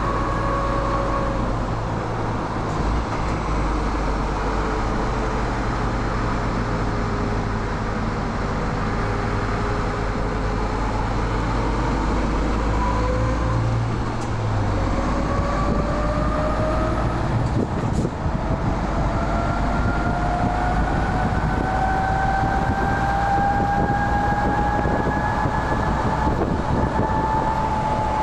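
MAN TGX 18.470 truck's six-cylinder diesel engine running under way, a steady low drone whose pitch dips slightly, then climbs slowly over the second half as the truck gathers speed.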